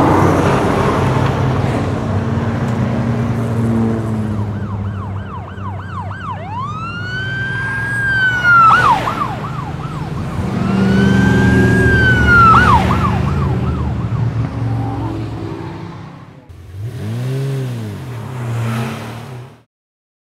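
Cartoon sound effects of a police car chase: car engines running under a police siren. The siren wails in two long rise-and-fall sweeps about a third and halfway through, with quicker yelps around them. Near the end a lower swooping sound rises and falls twice, then everything cuts off suddenly.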